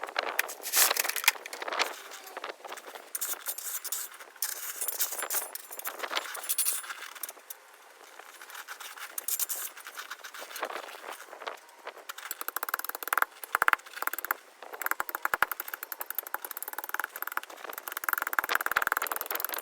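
Shovel scraping and digging into stony ground, with small stones clattering and rattling in irregular bursts.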